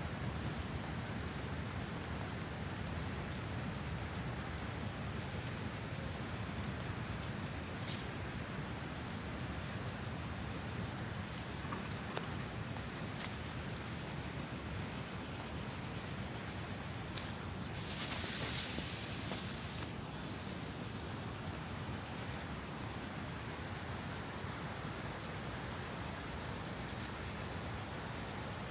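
A steady high trill of insects, pulsing rapidly, over the even rush of a flowing stream; the trill swells briefly about two-thirds of the way through.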